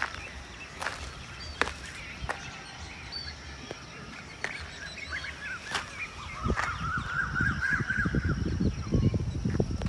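Birds chirping and chattering, with a denser burst of chatter near the end. Sharp clicks come at intervals, and low rumbling thumps build up in the second half.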